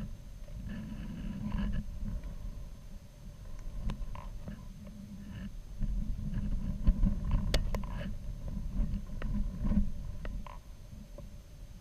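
Low rumbling buffeting picked up by a camera riding on a high-altitude balloon, with scattered light clicks and a sharper knock about seven seconds in.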